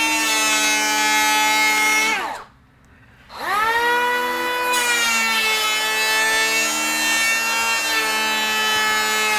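DeWalt DCP580B 20V MAX brushless cordless planer running and cutting along a wooden board with a steady whine. It winds down about two seconds in, then spins back up about a second later with a rising whine and runs steadily on.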